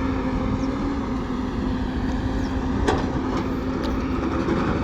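Heavy diesel engine running steadily, a low rumble with a constant hum, and a single sharp knock about three seconds in.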